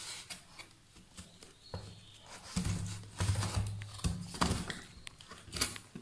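A husked corn cob bumping and scraping against the sides and floor of a cardboard box as it is picked up and moved about: irregular knocks and rustles.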